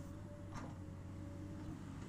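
Komatsu hydraulic excavator running steadily at work: a low engine hum with a thin steady whine over it, and one short knock a little over a quarter of the way in.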